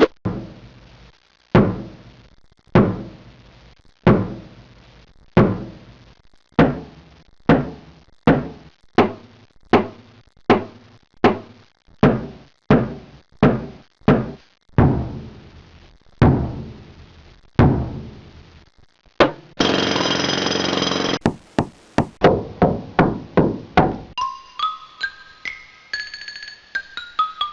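A series of single knocks or thuds, each ringing briefly, spaced about one a second. Near the end they give way to a short burst of hiss, a few clicks and then a run of tones stepping upward in pitch.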